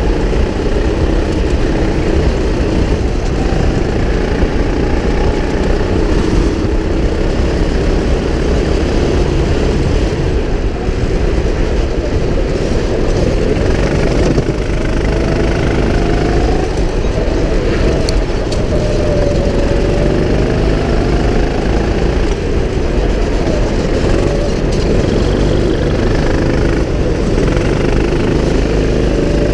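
Go-kart engine running close to the microphone as the kart laps a track, its pitch rising and falling with the throttle through the corners.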